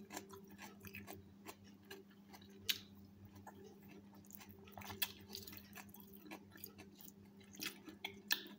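Someone eating a dressed lettuce salad: faint crisp crunches and scattered light clicks of a fork in the salad and against the ceramic plate, over a faint steady low hum.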